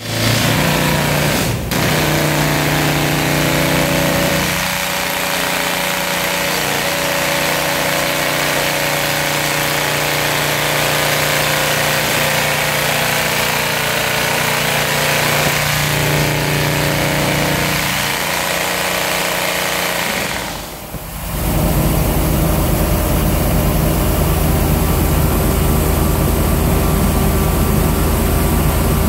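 Toku TS 55 rock drill on a mini excavator's arm, drilling with fast, continuous hammering over a steady engine. The sound dips briefly about two-thirds through, then the hammering comes back heavier.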